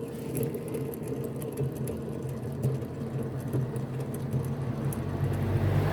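Steady low mechanical hum with faint rapid ticking from a 2002 Nissan Almera N16 whose left rear wheel bearing is worn, growing slightly louder towards the end.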